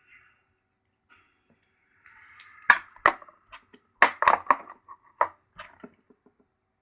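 A butterfly knife being handled: a quick run of sharp clicks and clacks from its handles, starting about two and a half seconds in.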